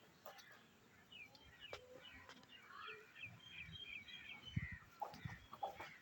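Songbird chirping a quick run of short, high notes, faint against a quiet rural background, with a few soft low thumps near the end.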